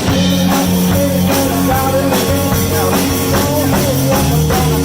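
Live blues band playing an instrumental passage between sung lines: guitar over bass guitar and a drum kit.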